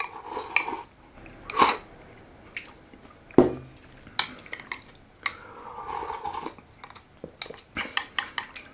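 Chopsticks clicking and scraping against bowls while eating rice and miso soup, with a heavier knock about three and a half seconds in as a bowl is set down on the table, and soft eating noises between.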